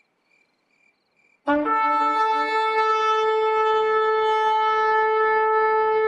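Shofar (ram's horn) blown in one long blast starting about a second and a half in: a brief lower note that jumps up to a higher one, then held steady. Before the blast there are only faint, evenly spaced chirps.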